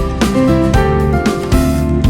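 Background music with keyboard and piano notes over a steady beat.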